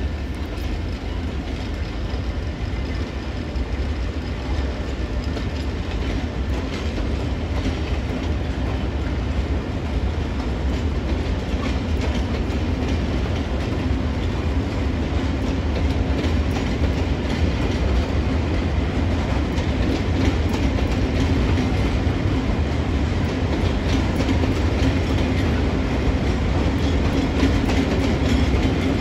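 Freight train of flat wagons loaded with rails pulling out and rolling past, its wheels clacking over the track. The sound is steady and grows gradually louder toward the end.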